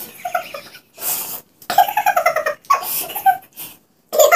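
Women laughing in short bouts, broken by sharp hissing breaths, as from a mouth burning after very spicy momos.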